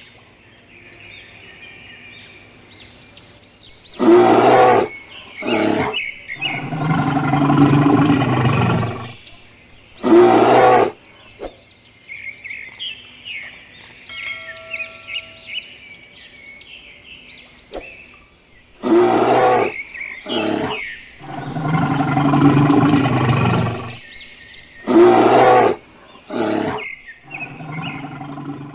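A big cat roaring and growling in a string of loud calls a few seconds apart, with birds chirping in the gaps. The same sequence of roars repeats about halfway through.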